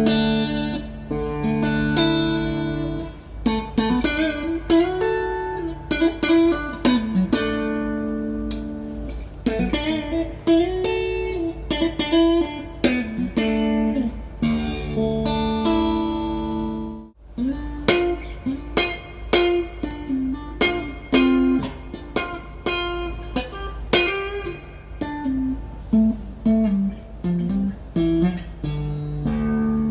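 PRS SE DGT Gold Top electric guitar playing picked single-note lines with string bends over held lower notes. There is a brief gap about halfway through.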